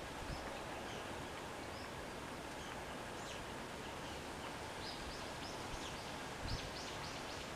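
Steady outdoor background noise with faint, short high chirps of small birds, coming more often in the last few seconds.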